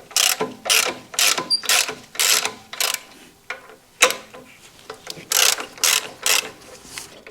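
Hand socket ratchet turning out a front brake caliper mounting bolt on a motorcycle fork leg, with a 12-point 10 mm socket. A run of about six ratcheting strokes comes at roughly two a second, then a single click, then three more strokes.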